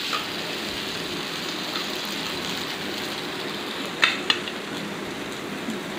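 Onion and spice paste sizzling steadily in oil in an iron kadai, stirred with a steel spatula. Two light clinks come about four seconds in.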